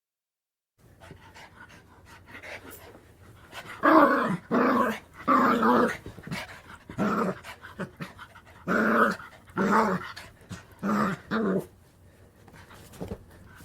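Chihuahua puppy giving about eight short, growly barks in quick succession, starting about four seconds in. These are the frustrated little vocal outbursts of a very young puppy.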